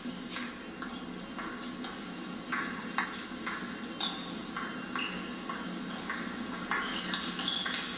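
Table tennis ball clicking off the paddles and bouncing on the table during a rally, about two sharp clicks a second. The loudest cluster comes near the end.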